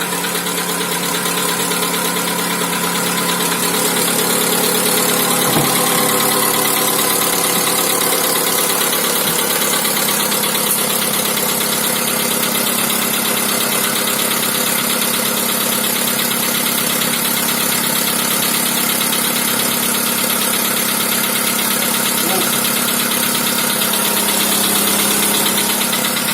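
Volkswagen Polo Sedan's 1.6-litre CFNA four-cylinder petrol engine idling steadily just after a cold start, with a fast, even knock from the engine that shows only while it is cold.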